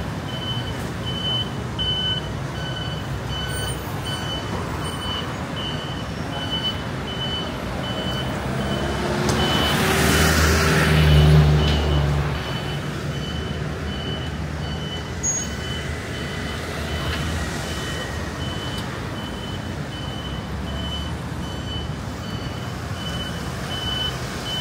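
A high electronic beep repeating about every two-thirds of a second over street noise. A motor vehicle passes close, loudest about ten to twelve seconds in.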